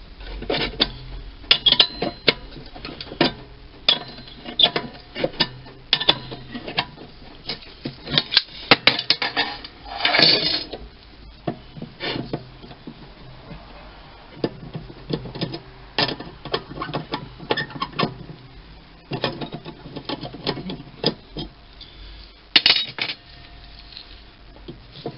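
Sharp metallic clicks and clinks in irregular clusters, with a brief scrape about ten seconds in: a wrench working the nut welded onto a sheared bolt as the bolt is wound out of the aluminium housing.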